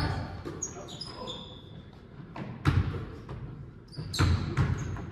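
Basketball bouncing on a hardwood gym floor, a few irregular thuds, with short high sneaker squeaks in between, echoing in a large hall.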